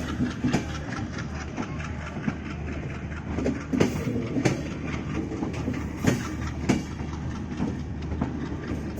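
Passenger train running, a steady rumble of wheels on rails broken by sharp clacks over the rail joints every second or two, several of them in close pairs.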